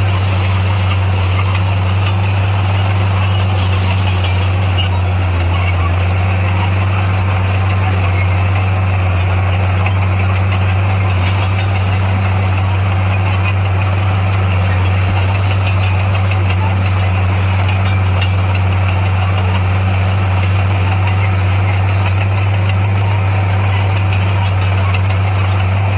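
Heavy construction machine's diesel engine running steadily, a loud, even low hum with no revving up or down.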